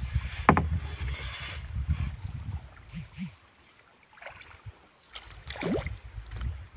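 Canoe moving on a river: low rumble of water and wind against the microphone that dies down about three seconds in. Two short falling whistle-like sounds, about half a second in and near the end.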